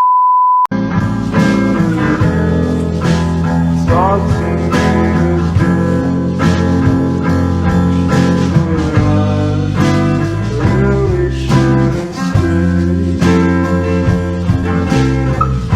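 A steady beep lasting under a second, then music with guitar and singing, in a blues style.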